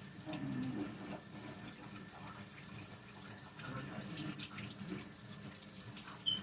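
Kitchen faucet running into the sink, a steady hiss of water, with a short high beep near the end.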